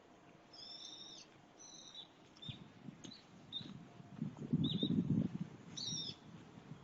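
Small birds chirping in short, high, two-toned calls, repeated every second or so. From about two and a half seconds in, an irregular low rumbling noise comes in under them and becomes the loudest sound.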